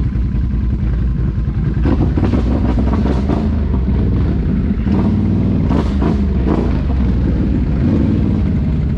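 ATV engine running loud, with several surges of revving about two to seven seconds in.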